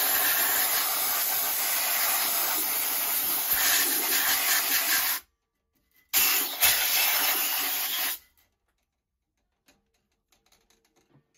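Compressed air hissing from a blow gun in a long blast that cuts off about five seconds in, then a second blast of about two seconds, blowing water off freshly washed clock movement parts to dry them.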